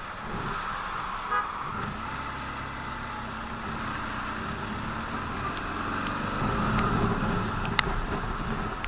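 BMW R 1200 GS boxer-twin engine running under way, with a short horn beep about a second and a half in. The engine gets louder near the end.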